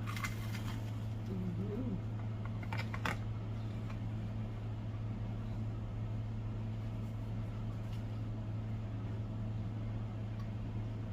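Steady low hum of a fan or appliance in a small room, with a few brief eating noises near the start and about three seconds in.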